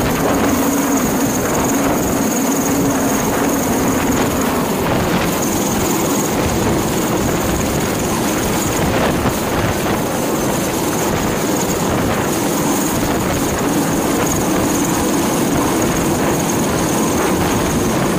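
Helicopter hovering low overhead, its rotor and engine running loud and steady, with a steady high whine above the rotor noise.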